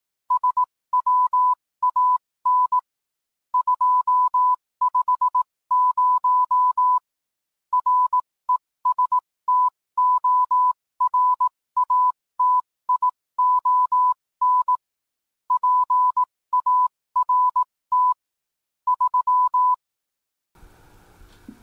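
Morse code sent as a single steady tone of about 1 kHz, keyed in short dots and longer dashes with pauses between groups. It stops about 20 seconds in, leaving faint room hum.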